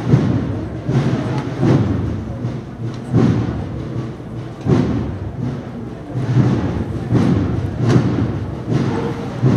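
A procession band's bass drum keeps a slow, steady march beat, about four beats every three seconds.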